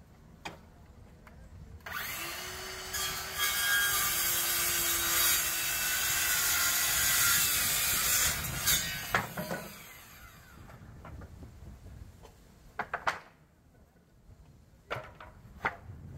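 Handheld circular saw starting about two seconds in and cutting through a wooden board for about eight seconds, a steady motor tone under the cutting noise, before it winds down. A few sharp knocks of wooden boards being handled follow near the end.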